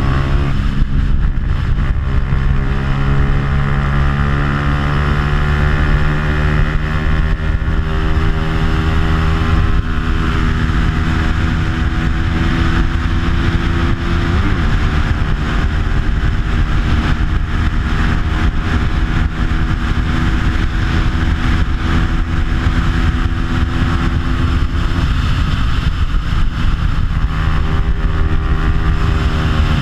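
Bajaj Pulsar 200 single-cylinder four-stroke engine, stock but fitted with an aftermarket exhaust, running at high revs under race load. Its pitch holds high, dips sharply and climbs back about halfway through, and dips again at the very end.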